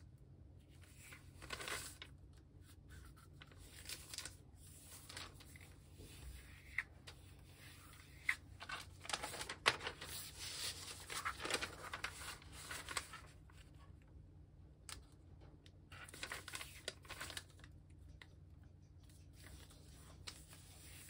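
A large sheet of origami paper rustling and crinkling as hands unfold, turn and crease it and smooth it flat on a cutting mat, in irregular bursts that are busiest around the middle.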